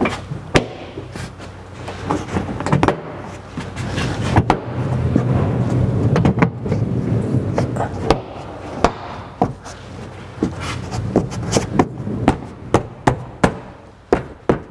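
Plastic trim panel of a Subaru Forester tailgate being pressed and knocked into place by hand: a string of sharp knocks and clicks as its clips seat, with rustling and handling noise in the middle and a run of even taps about two a second near the end.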